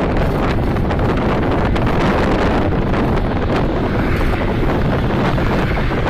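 Loud, steady wind noise on the microphone of a car moving at highway speed, with road and traffic noise mixed in.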